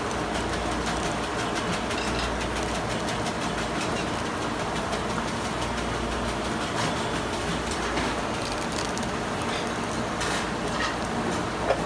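Steady low machine hum with a constant background hiss, and faint ticks from knife and handling; one short click just before the end.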